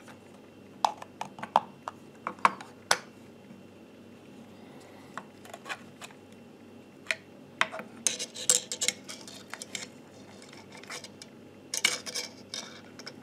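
Plastic clicks and snaps of a small plug-in power supply's case being pried apart with a flathead screwdriver. A run of sharp clicks comes in the first three seconds, and denser clattering of the plastic case halves comes about eight seconds in and again near the end.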